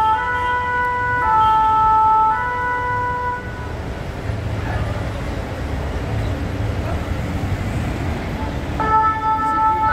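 French two-tone emergency vehicle siren, alternating between a high and a low note each held about a second. It stops about three and a half seconds in and starts again near the end, with steady traffic and engine rumble between.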